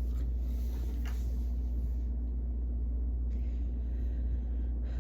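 Steady low hum with a faint higher steady tone above it, unchanging throughout; no music or voice yet.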